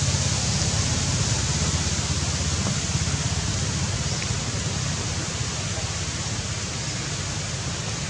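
Steady rushing noise with a flickering low rumble, typical of wind buffeting the microphone outdoors.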